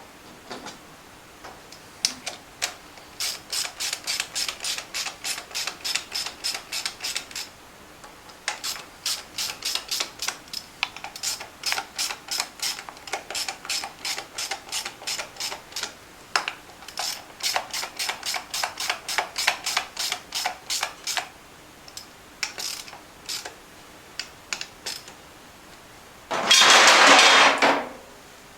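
Hand socket ratchet clicking in quick runs of about five clicks a second, spinning on the wheel nuts while a tire is mounted on an ATV hub. Near the end comes one loud rushing burst lasting about a second and a half.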